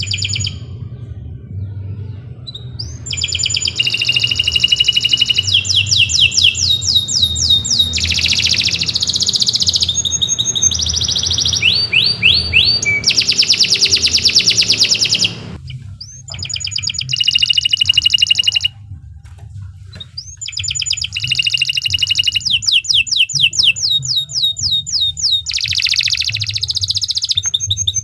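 Domestic canary singing a long song of rapid rolling trills and fast repeated chirps, the phrases changing every second or two, with two short pauses in the second half.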